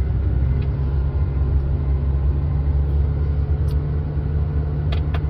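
Diesel engine of a John Deere 544K wheel loader running steadily, a low even rumble, with a few faint clicks near the end.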